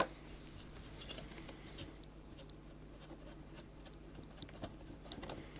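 Soft scattered plastic clicks and rubbing from a CD player's loader tray being pushed and moved by hand while its mechanism is tried out, with a few sharper ticks in the second half.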